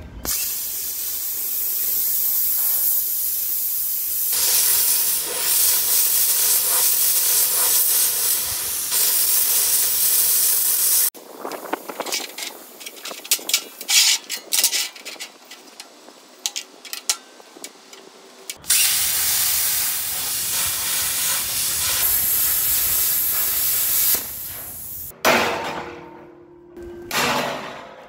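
UniMig Razorcut 45 plasma cutter cutting steel plate with a loud, steady hiss. It breaks off into a stretch of sharp clicks and crackles, then hisses again. Near the end come a few hammer blows on the steel plate, ringing.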